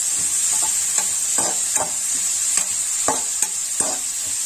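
Chopped onion leaves sizzling in hot coconut oil in a kadai, being stirred with a slotted spatula that scrapes and taps the pan about two or three times a second over the steady hiss. The greens are being sautéed until they wilt down.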